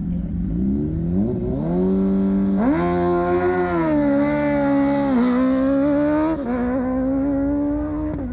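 Sport motorcycle engine revved hard: the revs climb in steps and hold high, then drop sharply about five seconds in and climb again with two more sharp drops, as the bike launches and shifts up through the gears.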